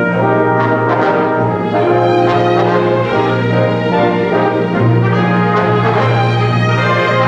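Live orchestra playing sustained chords, brass to the fore, with the chords changing every second or so.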